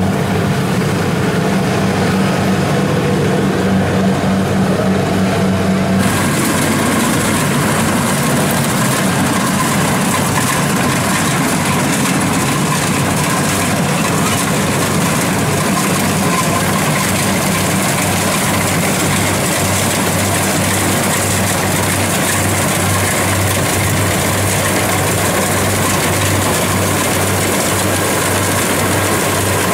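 Diesel engine of a Kubota DC-70 rice combine harvester running steadily at constant speed. About six seconds in, one hum drops out and a broad rushing noise from the machine comes up, then holds steady.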